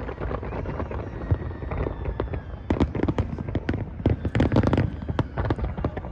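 Fireworks display going off: a rapid string of sharp bangs and crackles over a low rumble, thickest in the middle.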